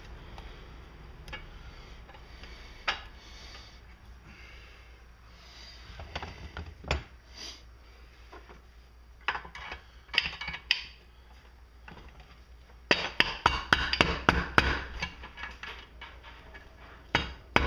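Hammer knocks on the piston of a Briggs & Stratton single-cylinder engine, trying to drive it out of its bore: scattered single knocks, then a fast run of taps near the end. The piston will not come free; a worn ring groove in the scored cylinder holds it.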